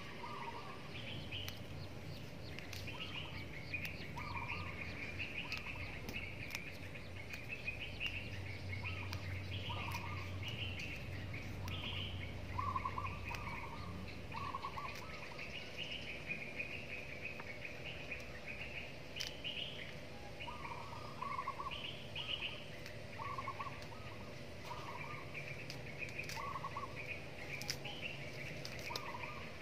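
Small birds chirping and calling in the garden trees: many short calls, repeated and overlapping, at two pitches.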